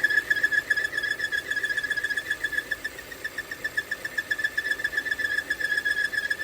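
High whistle pulsing rapidly many times a second from an air (vacuum) leak on a 2017 Volvo XC60's idling engine, in the PCV/oil trap area. The leak is what drives the idle RPM too high.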